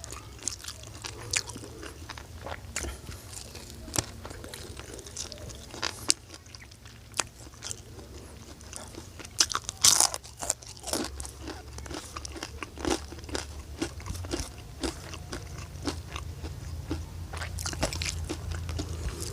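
A person eating close to the microphone: irregular crunching bites and chewing of crunchy food, with a burst of loud crunches about halfway through.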